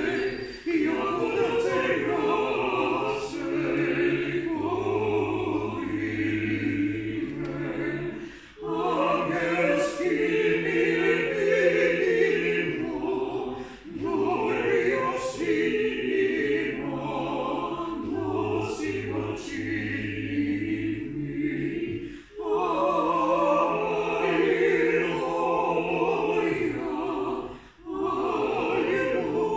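A small mixed vocal ensemble, women's voices with a man's lower voice, singing a cappella in sustained phrases. There are four short breaks between phrases.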